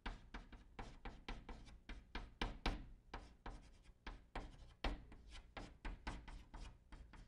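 Chalk writing on a blackboard: a quick run of taps and short scrapes as Chinese characters are written stroke by stroke.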